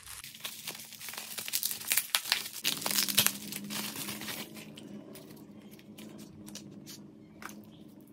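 Plastic bubble wrap crinkling and rustling as it is pulled off a small packaged item. Busy, with sharp crackles through the first half, then thinning to occasional soft rustles.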